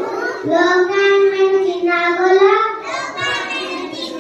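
A boy singing into a handheld microphone, a melodic line of long held notes that glide in pitch.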